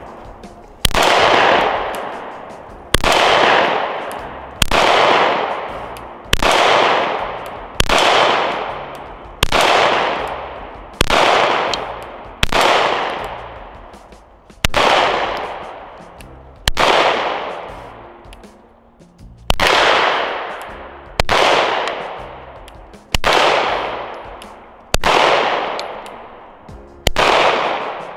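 FN 509 MRD 9mm pistol fired in slow, steady aimed shots, about fifteen of them, one every one and a half to two seconds. Each shot is followed by a long echoing decay.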